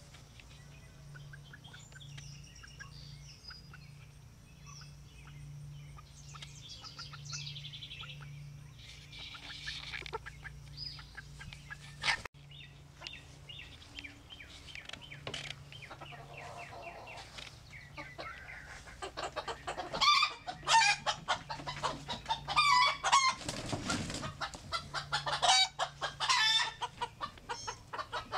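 Roosters clucking and cackling in rapid, loud runs of calls through the last third, after a quieter stretch with only faint high calls. A single sharp click comes near the middle.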